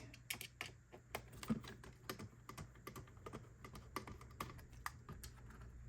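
Faint, irregular small clicks and taps of a Phillips screwdriver bit backing out small screws from a plastic end cap.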